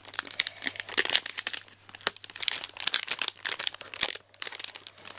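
Clear plastic packaging bag with a zip closure being handled and pulled open: irregular crinkling crackles and sharp clicks, with a couple of brief pauses.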